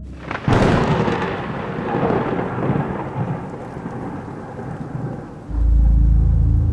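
A sharp thunderclap about half a second in, its rumble and rain-like hiss slowly dying away over several seconds. Near the end a loud, low steady drone comes in.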